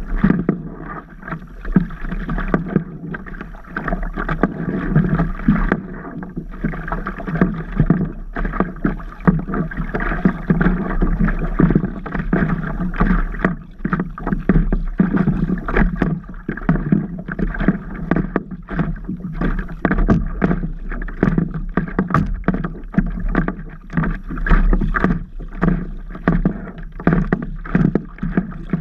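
Water splashing and slapping against a stand-up paddle board close to the microphone: a dense, irregular run of small splashes from the board moving through the water.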